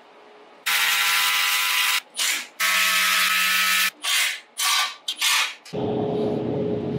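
Power drill running in two steady runs of about a second each, then three short bursts. Near the end a steady hum with a single held tone takes over.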